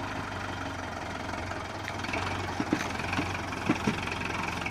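Kubota MU4501 tractor's four-cylinder diesel engine running steadily at low revs. A few short knocks are heard over it from about halfway through.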